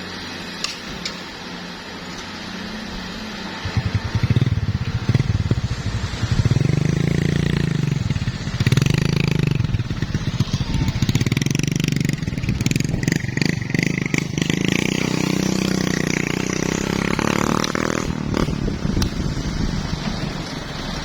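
Heavy diesel engine running and revving up and down repeatedly, getting louder about four seconds in. A series of clattering knocks comes around the middle.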